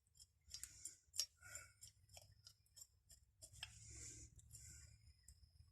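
Faint, irregular clicks and light rubbing as an old metal pipe wrench is handled and turned over.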